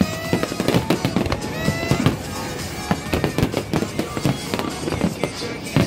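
Aerial fireworks bursting one after another, many sharp bangs and crackles several a second, with music playing through them.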